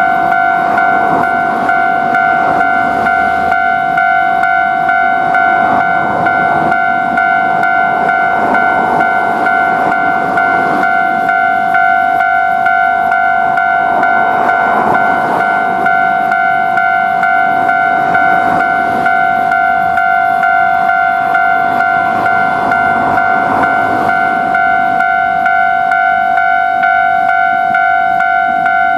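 Japanese railway level-crossing warning bell (fumikiri) ringing its steady two-tone alarm throughout, over the noise of a train running past.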